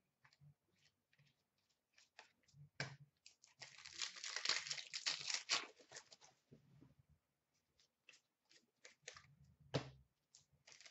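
Hands handling 2013-14 Panini Contenders hockey cards and packs: scattered light clicks and taps of cards, with a longer stretch of crinkly tearing about four to six seconds in.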